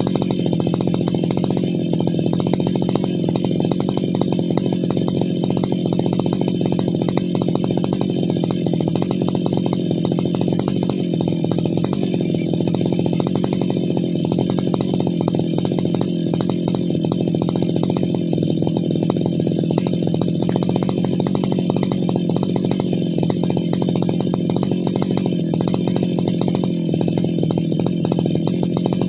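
Brushcutter engine running steadily at a constant speed, with no revving up or down.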